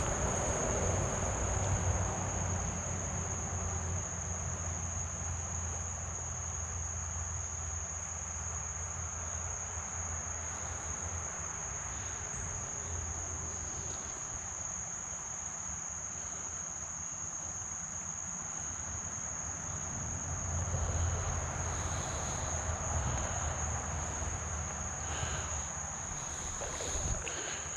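Crickets singing, one steady high-pitched trill, over the even hiss of flowing creek water.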